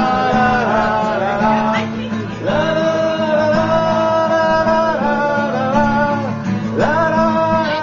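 Live acoustic guitar playing under a voice singing a wordless melody in long held notes that slide up into each phrase.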